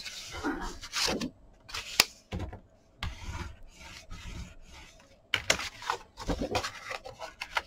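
Kraft cardstock handled on a cutting mat: stiff card panels sliding, rubbing and being pressed flat, in short irregular papery rustles with a few sharp clicks, one about two seconds in and several near the end.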